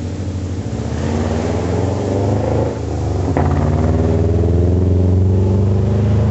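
2002 Subaru Forester's naturally aspirated flat-four, straight-piped through unequal-length headers with no muffler, accelerating hard past the camera. The exhaust note climbs in pitch, drops once about three seconds in as at a gear change, then climbs again as the car goes by.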